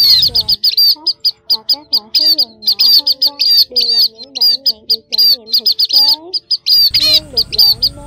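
Munia (chim ri đen, 'sắc dần') lure calls: rapid high chirps, several a second, over lower wavering notes that rise and fall. There is a low rumble in the first half second.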